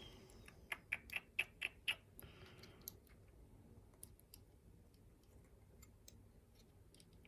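A quick run of five sharp clicks, about four a second, from a pin-tumbler challenge lock being handled, followed by a brief scrape and then faint scattered ticks.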